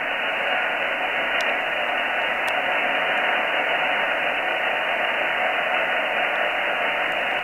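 Shortwave receiver in lower sideband on the 80 m band playing a steady hiss of band noise, with no voice in it, cut off above about 3 kHz by its 3 kHz filter. Two faint clicks come about a second and a half in and again a second later.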